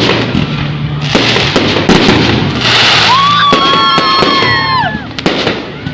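Fireworks: a string of sharp bangs from bursting shells, then a whistling firework's steady high whistle from about three seconds in that drops in pitch and cuts off near five seconds.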